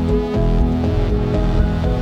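Background music: electronic track with held synth tones over a pulsing deep bass.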